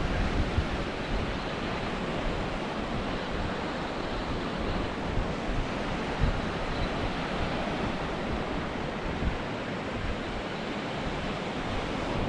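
Surf breaking along a beach with wind buffeting the microphone: a steady rushing noise with an uneven low rumble.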